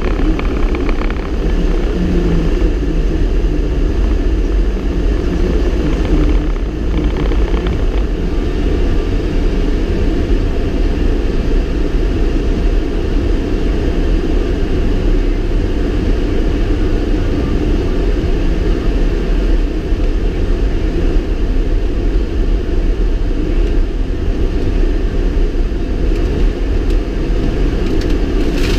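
Steady low rumble of a vehicle's engine and tyres, heard from inside the cab while driving on snow-covered roads.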